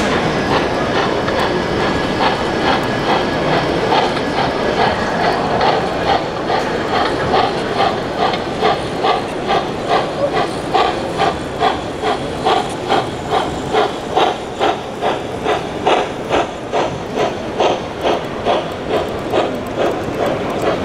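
Model class 38 (Prussian P8) steam locomotive chuffing rhythmically at slow speed, about two chuffs a second, the beat growing clearer from about six seconds in over steady background noise.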